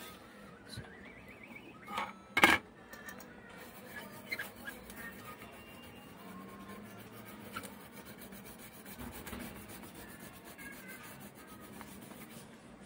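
Toothbrush bristles scrubbing back and forth across a graphics card's circuit board, a faint dry scratching. A single sharp knock comes about two and a half seconds in, the loudest sound here.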